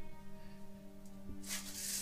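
Soft, sustained background music score. A short low thump comes just past halfway, and a brief hissing rustle follows near the end.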